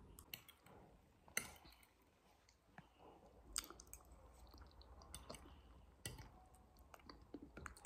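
Faint chewing of a mouthful of beans and cassava stew, with several sharp clicks of a metal spoon scattered through it.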